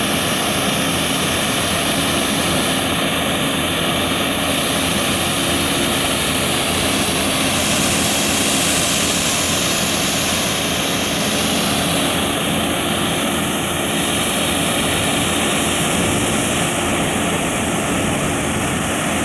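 Runway rubber-removal truck running its high-pressure water-jetting cleaning head: a steady, loud mechanical drone of engine and pumps with a dense hiss over it, unchanging throughout.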